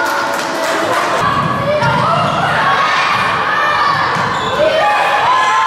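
Thuds of a football being kicked and bouncing on a sports-hall floor, under a crowd of children and adults shouting and cheering that echoes in the large hall. The shouting grows louder near the end.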